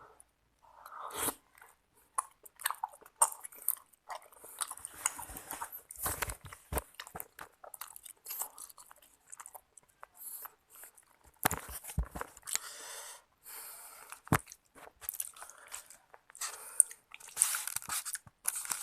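Close-miked chewing and biting of seblak, irregular and wet, with many sharp mouth clicks.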